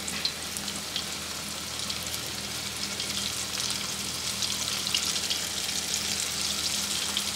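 Flour-dusted venison tenderloin slices frying in about a quarter inch of hot vegetable oil in a cast-iron skillet: a steady sizzle with a dense patter of small pops.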